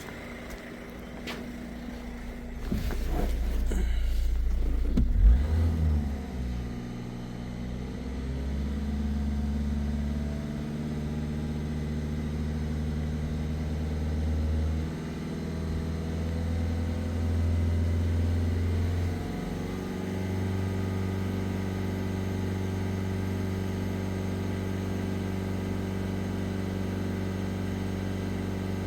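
Peugeot 1.6 HDi diesel engine idling steadily while it warms up after a coolant refill, its tone shifting slightly a few times. Early on there are some handling knocks, with one sharp thud about five seconds in.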